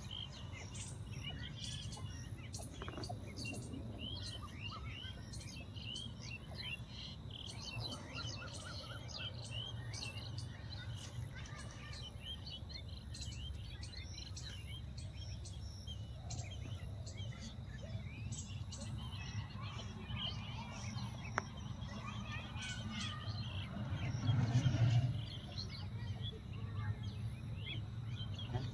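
Small birds chirping and calling over and over, over a steady low rumble that swells briefly near the end.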